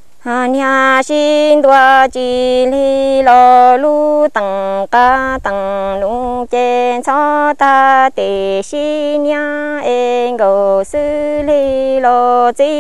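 Unaccompanied Hmong kwv txhiaj sung poetry: a single voice chants a line of verse in long held notes that glide and waver, broken by short breaths. It begins a moment after a brief pause.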